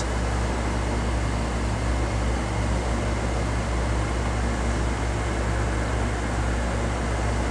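Steady low hum under an even hiss of background noise, unchanging throughout.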